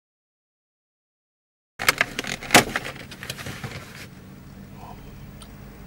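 Silence at first, then about two seconds in a quick flurry of sharp plastic clicks and crackles from a clear plastic clamshell doughnut box being handled and opened. A steady low hum runs underneath.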